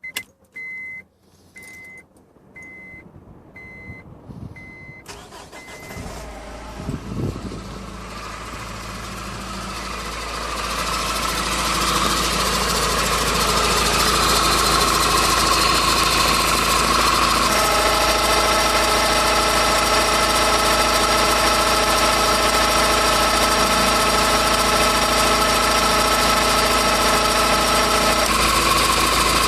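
Honda Civic: a warning chime beeps evenly, then the engine starts and its noise builds over several seconds into a steady run. Over the second half a whirring whine of several steady tones rides on top: the whirring noise the car is being checked for.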